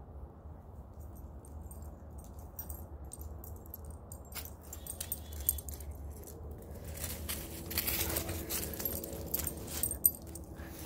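Faint jingling and light clicking of a dog's collar tags as the dogs move about, over a steady low rumble; from about seven seconds in the jingling and rustling grow louder and busier.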